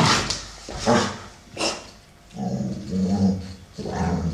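Two American Staffordshire Terriers play-fighting: a few short harsh snarls in the first two seconds, then long low growls from about halfway.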